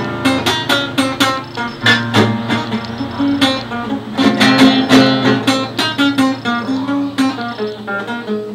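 Classical guitar played solo: an instrumental break of strummed chords and picked melody notes, with many quick attacks in a steady rhythm.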